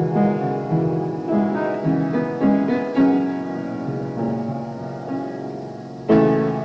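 Piano playing a slow passage of chords and melody notes, with no vocals. A loud chord is struck about six seconds in.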